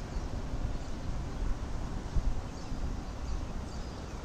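Outdoor ambience: wind buffeting the camera microphone as an uneven low rumble, with a few faint bird chirps.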